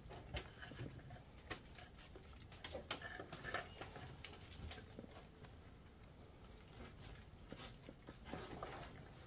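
Faint, irregular scrapes, knocks and rustling of a person clambering down through a narrow rock crevice: feet and hands on rock and soil, clothing brushing against stone and plants.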